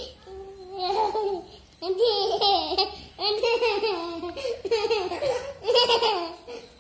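High-pitched laughter of a baby or young child, coming in several bouts about a second long with short gaps between them.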